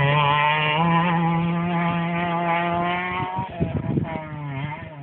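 Rally car engine held at high revs on a gravel stage, its note stepping up slightly about a second in. About three seconds in the driver lifts off: a few sharp pops, then the engine note falls and fades as the car pulls away.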